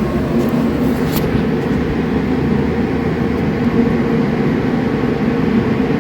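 Steady low mechanical hum with a few held tones, unchanging throughout.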